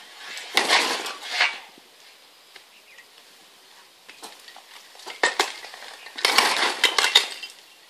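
Bricks breaking loose from the top of a brick wall being pushed over with a long pole, clattering down onto rubble in two bursts: one about half a second in, and a louder, longer one about six seconds in. A few single knocks come between the two bursts.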